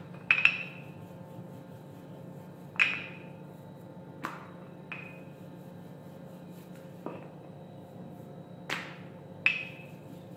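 A wooden rolling pin rolling out dough on a hard counter, giving about seven sharp, ringing clinks at uneven intervals over a low steady hum.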